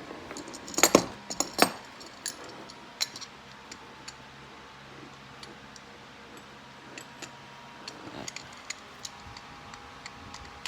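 Small metal parts clinking and knocking as an RC brushless motor is handled and test-fitted into an aluminium motor mount. A burst of sharp knocks comes about a second in, then scattered light ticks, with a few more clicks near the end.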